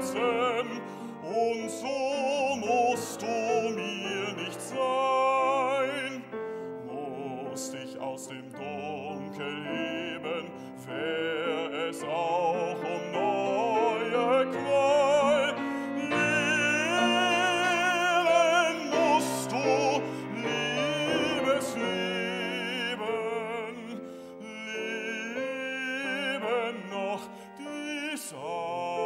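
Baritone singing an opera aria in German with grand piano accompaniment, his voice carrying a wide vibrato on the held notes.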